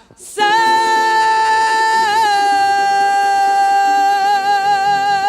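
Samba-school lead singer holding one long high sung note over the avenue's sound system, with a brief waver in pitch about two seconds in.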